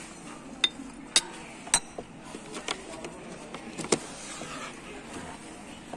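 Thin gold-rimmed armudu tea glasses clinking against each other and their glass saucers as they are handled in their box tray: four or five sharp clinks, each with a brief ring, in the first four seconds over a steady hum.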